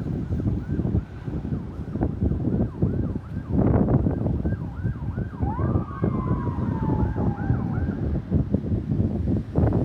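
Ambulance siren on a fast yelp, its pitch sweeping up and down about three times a second, over loud traffic rumble. A second tone glides slowly downward for about two seconds midway.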